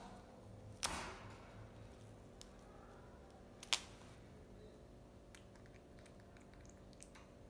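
Small clicks and snaps of a baby monkey picking seeds from a fresh lotus seed pod and biting them, with two louder sharp clicks, one about a second in and one near the middle.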